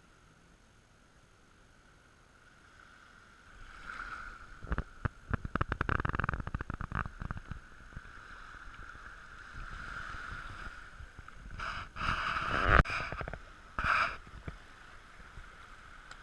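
Water splashing and gurgling, with a quick run of clicks and knocks about five seconds in and louder splashes later on.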